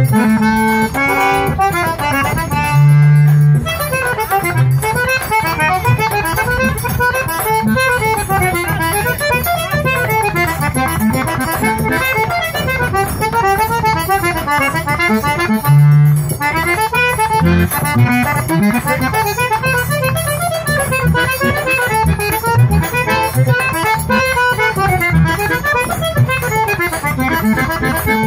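Eight-bass button accordion (sanfona de oito baixos) playing a lively melody that runs up and down, with a zabumba bass drum beating underneath and a triangle ticking steadily along.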